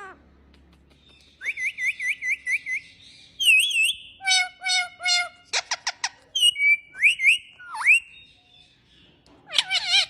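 A pet bird whistling and calling: a quick run of about eight rising whistles, then swooping whistles, rough calls and a brief burst of rapid clicks, with more rising whistles and a last call near the end.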